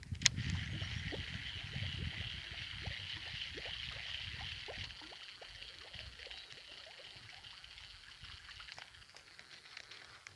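A baitcasting reel being worked: a sharp click at the start, then faint scattered ticks as the reel handle turns. Under it is a steady high-pitched hiss that slowly fades, with a low rumble in the first few seconds.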